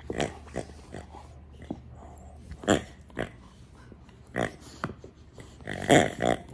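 Australian shepherd chewing a green rubber squeaky toy, squeezing out short, irregular squeaks and honks, about ten in all, with the loudest pair near the end.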